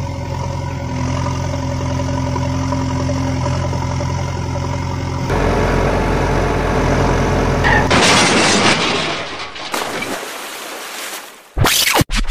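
Heavy-vehicle engine sound effect idling steadily, dubbed over a toy JCB backhoe loader. It shifts to a deeper, louder engine sound about five seconds in, then turns to a noisy crash-and-splash that fades out. Music cuts in abruptly near the end.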